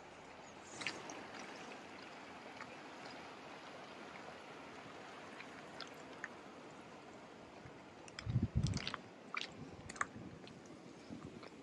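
Running water of a stream, a steady rushing hiss. About eight to ten seconds in, a few footsteps crunch in snow, with low thuds and sharp crackles.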